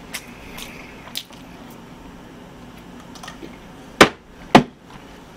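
Faint clicks of chewing a full mouthful of noodles, then two sharp clicks about half a second apart, the loudest sounds, as a metal drink can is handled.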